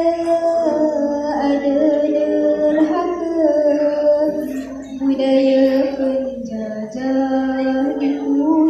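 A young female voice chanting a Malay syair, a sung poem, in long held notes that slide and step between pitches.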